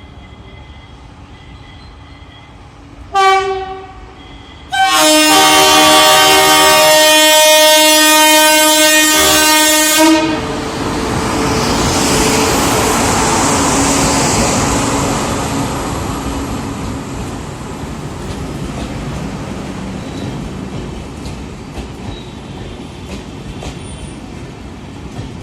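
Train horn sounding: a short blast about three seconds in, then a long blast of about five seconds, followed by the rumble and rattle of the train running by on the rails, slowly fading.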